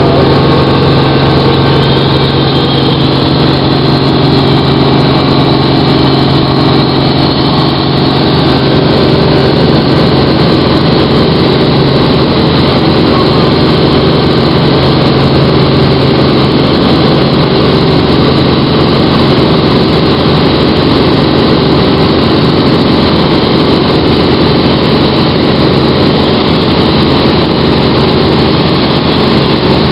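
Light helicopter's engine and rotor in flight, heard from inside the cabin: a loud, steady drone with a low hum that does not change.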